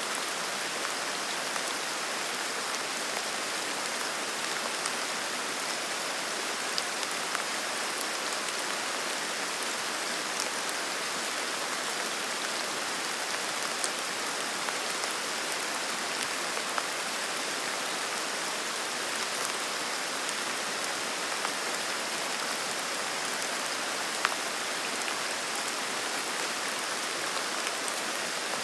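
Steady rain falling in a forest: an even hiss with scattered, sharper drop ticks.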